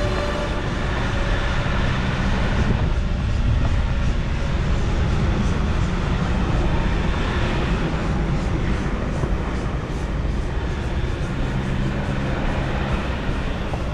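Steady rumble of a vehicle on the move, road and wind noise heavy in the low end.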